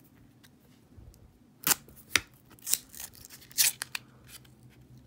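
Half-dollar coins and paper roll wrappers being handled: a handful of short, sharp clicks and light rustling spread irregularly through a few seconds.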